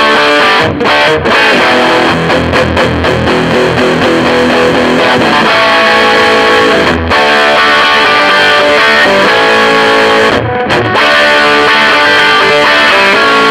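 Electric guitar played through a Mesa Boogie Recto-Verb 25 tube combo amp (EL84 power tubes) with the gain up, loud distorted classic-rock chords and riffs with a few short breaks. The tone has so much gain that it may be a bit too distorted.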